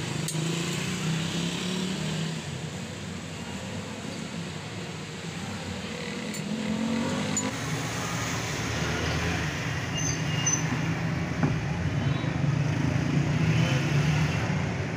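Steady rumble of road traffic and vehicle engines, growing louder about halfway through, with a few faint clicks of battery plates being handled.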